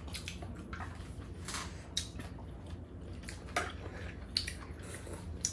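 Cooking pots and utensils clinking and knocking at irregular moments, the sharpest knocks about two seconds in and again a little later.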